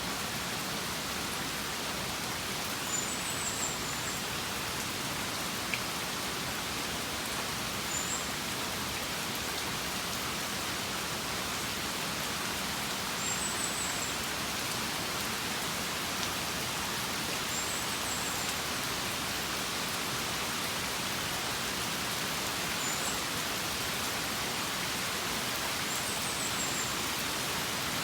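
Steady rain falling, an even hiss, with a faint short high chirp about every four to five seconds.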